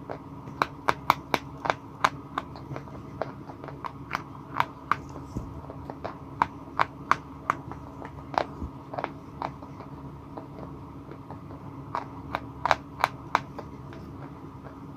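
Sticks of white chalk being chewed: sharp crunches in quick runs, with a quieter stretch a little past the middle.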